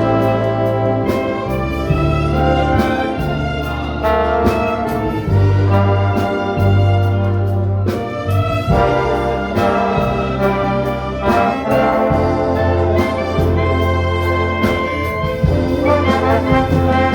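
An orchestra playing music, with held bass notes under sustained melody lines and a steady percussion beat.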